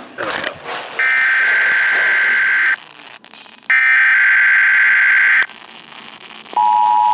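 Emergency Alert System SAME header data bursts, two buzzing digital bursts of about 1.75 s each, separated by about a second of hiss. Near the end the EAS two-tone attention signal (853 and 960 Hz together) starts and holds steady.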